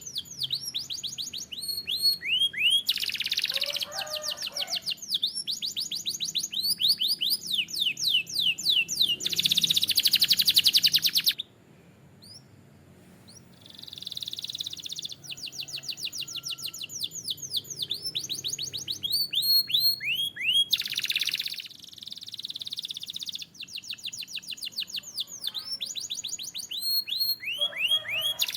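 Canary singing fast trills and rolls: long runs of rapidly repeated high notes, some rising, some falling, with a pause of about two seconds partway through before the song resumes.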